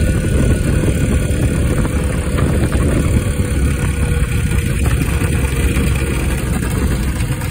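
Kawasaki 440 two-stroke engine on an ultralight aircraft running steadily, driving its propeller.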